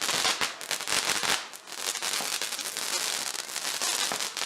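Consumer fireworks going off in a dense run of rapid crackles and pops, loudest in the first second and a half, then crackling steadily.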